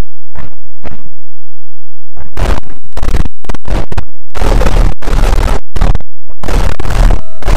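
Blown-out, heavily clipped noise from a layered video-effects edit, cutting in and out in choppy bursts. For the first two seconds there are only a few faint bursts, then a brief near silence; after that, loud bursts follow one another with short gaps between them.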